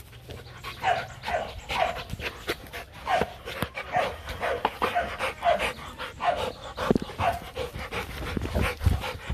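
Young Rottweiler panting in a steady rhythm close to the microphone, with a few low bumps and rubbing against the microphone near the end.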